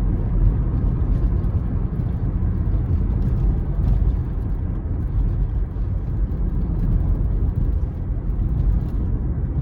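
Turbocharged five-cylinder engine of a 2005 Volvo S60 T5 running as the car is driven, a steady low rumble mixed with road noise.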